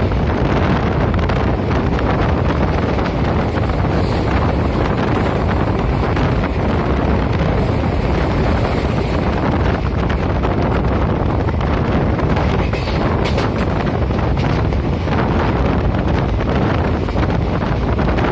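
Steady rumble and rushing noise of a moving train, with wind buffeting the microphone.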